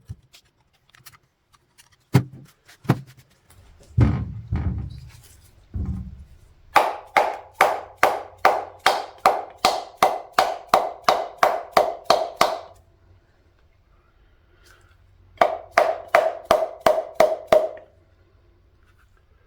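Rapid hammer taps on a rusty VW piston's wrist pin to drive it out, about three strikes a second, each with a short metallic ring. The taps come in two runs, a long one in the middle and a shorter one near the end, after a few scattered thuds at the start.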